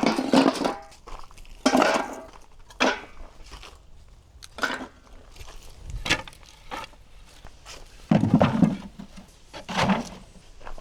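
Irregular wooden knocks and clunks, about seven spaced a second or two apart, as sawn wood is handled at the mill.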